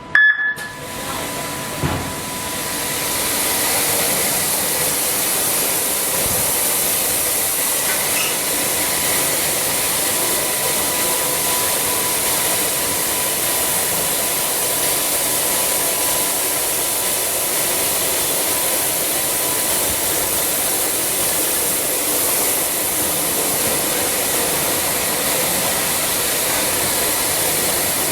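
Automatic car wash machine's high-pressure water jets spraying, a steady hiss that builds up over the first few seconds as the wash cycle starts and then holds level.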